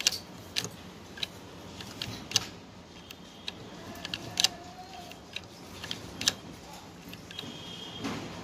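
Irregular sharp clicks and light taps, about one a second, as the plastic gears and spring-loaded throttle mechanism of an opened Chevrolet U-VA electronic throttle body are worked by hand.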